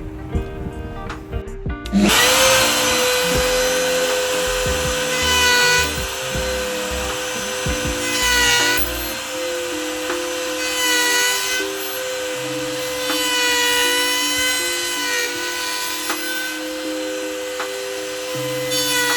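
An electric woodworking power tool starts about two seconds in and runs with a steady high whine, growing brighter and harsher every few seconds, over background music.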